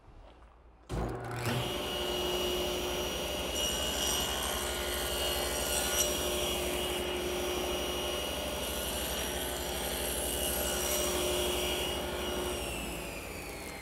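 Table saw switched on about a second in and running steadily while a plywood strip is fed on edge past the blade, cutting a groove down the middle of the edge. Near the end the motor is switched off and the blade spins down, its pitch falling.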